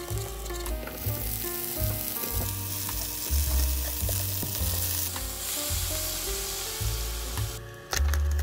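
Sliced green onions, then sausage slices and tofu cubes, sizzling in oil in a hot nonstick frying pan as they are stir-fried, over background music with a steady bass line. The sizzle is loudest in the first half.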